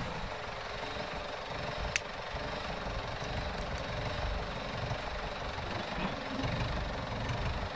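Farm tractor's diesel engine idling steadily while the tractor stands still, with one sharp click about two seconds in.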